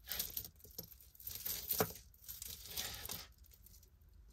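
Thin metal jewelry chains being handled and untangled: faint, irregular rustling and light clinks, dying down about three seconds in.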